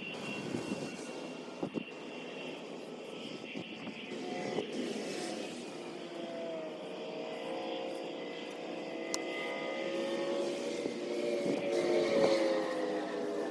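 Propeller airplane flying over: a steady engine drone that grows louder and slowly drops in pitch through the second half. A short knock comes about two seconds in.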